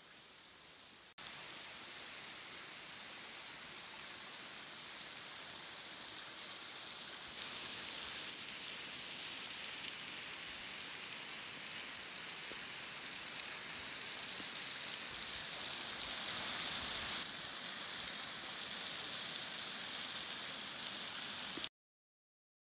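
Thin waterfall spilling over a rock overhang and splashing below, a steady hiss that starts suddenly about a second in, gets louder twice, and cuts off suddenly near the end.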